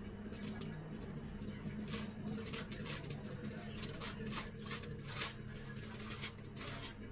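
Tint brush scraping bleach onto hair over aluminium foil, with the foil crinkling: repeated short, irregular scratchy strokes over a faint steady hum.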